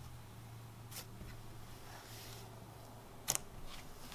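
Soft pink slime squeezed and stretched between the fingers, giving faint scattered clicks and crackles, the sharpest about three seconds in, over a low steady hum.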